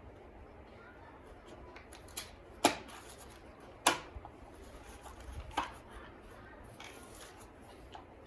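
A few sharp clicks and knocks from the sanding machine's parts being handled while its carbon brushes are changed, the two loudest a little over a second apart.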